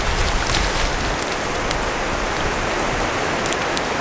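Steady hiss of surf washing up the beach, with a few faint ticks about a second in and near the end.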